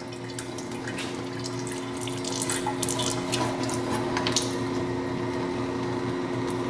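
Water-based flood coolant pouring steadily from a flexible coolant nozzle and splashing into the lathe's pan, over a steady low hum from the coolant pump. A few light clicks come in the first few seconds as the segmented hose is moved.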